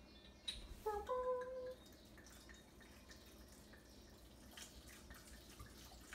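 Water poured from a bottle into a blender jar of greens, trickling and dripping faintly. A short pitched tone sounds about a second in.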